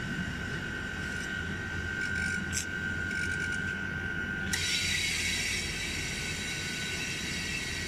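Fried ice cream machine running: its refrigeration unit hums steadily, with a high steady whine that stops about halfway through, when a hiss sets in and carries on. A metal spatula scrapes the frozen layer on the cold pan.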